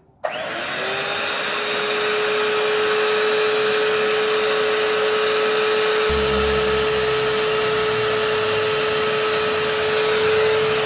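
Handheld electric mixer starting up right at the beginning and running steadily, its beaters whisking cake batter in a glass bowl: a steady motor whine, with a low rumble joining about six seconds in.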